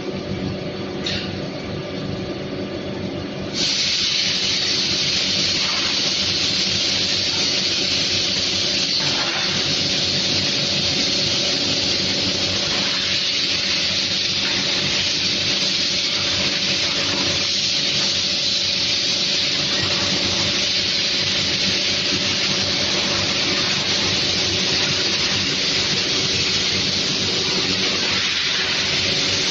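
Factory machinery of a powder coating line: a steady hum, joined suddenly about three and a half seconds in by a loud, steady hiss.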